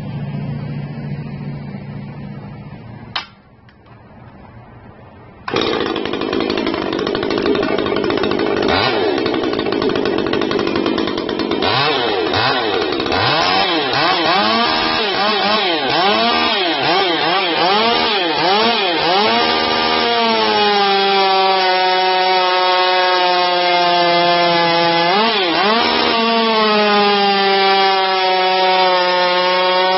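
Ported and polished Stihl MS 201 two-stroke chainsaw starting up about five seconds in, then revved up and down over and over before being held at high revs, with a brief dip in pitch near the end. A sharp click comes just before it starts.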